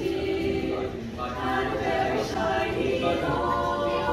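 High school show choir of mixed boys' and girls' voices singing together in harmony.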